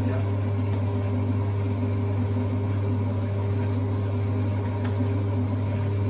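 1961 Hoover Keymatic 3224 washing machine running, its drum turning and tumbling wet laundry, with a steady low motor hum and a few faint ticks.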